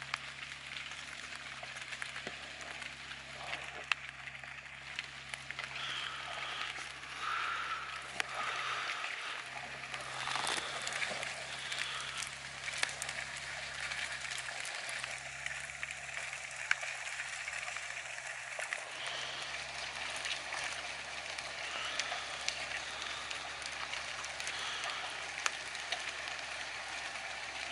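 Light rain pattering on the leaves and ground of a wooded trail, with scattered drips, over the faint low hum of a lifted Jeep Wrangler's engine idling up the trail.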